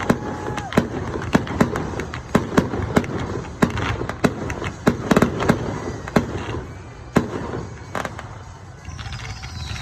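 Fireworks bursting: a rapid, irregular series of sharp bangs that thins out after about six seconds, the last bang coming about eight seconds in.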